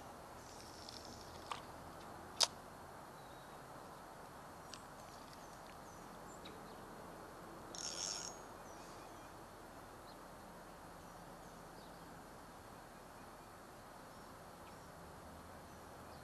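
Outdoor ambience: a steady low hiss, with a few sharp clicks in the first few seconds and a short burst of high chirping about eight seconds in.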